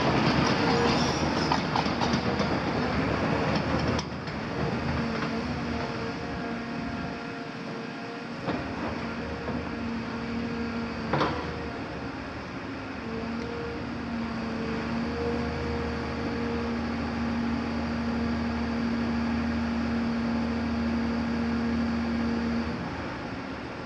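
Tracked hydraulic excavator: louder and clattering for the first four seconds, then a steady engine drone with a held whine, one sharp knock about eleven seconds in, and the drone dropping away near the end.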